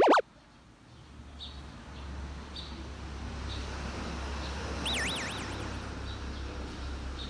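A short, loud swoosh at the very start, then outdoor ambience: a low rumble that swells and eases, with small birds chirping now and then and one warbling, trilled bird call about five seconds in.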